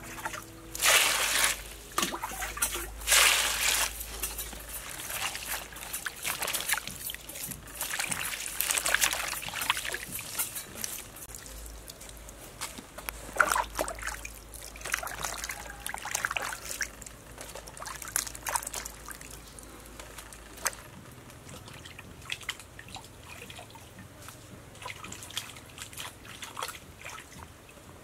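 Hands washing green onions, eggplant and cucumber in an earthenware basin of water: irregular splashing, trickling and dripping, with the loudest splashes about one and three seconds in.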